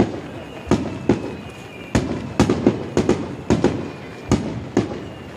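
Aerial fireworks from a star mine barrage: about a dozen shell bursts going off in quick, irregular succession, each a sharp bang with a short echo. The bangs thin out and grow fainter near the end.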